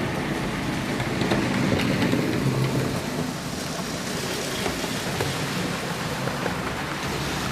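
HO scale model train running along the layout's track: a steady rushing rumble with fine clicks, a little louder for the first three seconds.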